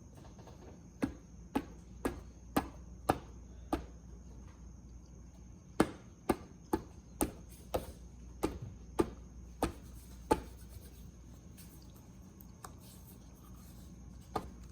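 Sharp knocks as a handlebar grip is driven onto the bar end, about two a second in two runs of six and nine, with a pause between and one more knock near the end.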